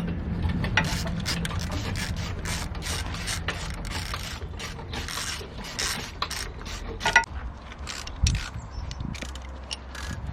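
Ratchet wrench clicking in quick irregular runs on the engine, with a few louder metal knocks about two-thirds of the way through.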